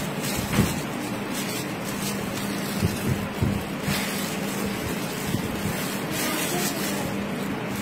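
Steady background hum and hiss with a low drone. Faint rustles and soft handling sounds come now and then as plastic-gloved hands work ground pork from a plastic bag into balls.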